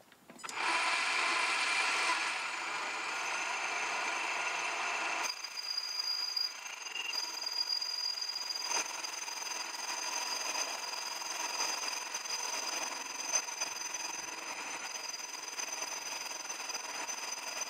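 Myford lathe running while a grooving tool is fed by hand into the spinning piston, cutting a piston ring groove. A harsh cutting noise starts about half a second in and is loudest for the first five seconds, then carries on steadier and a little quieter with a thin high whine over it.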